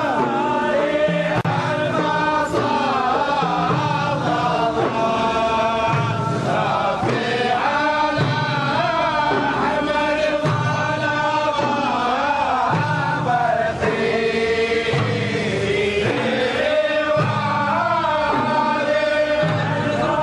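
Male voices chanting a devotional Arabic song, with a low beat about once a second.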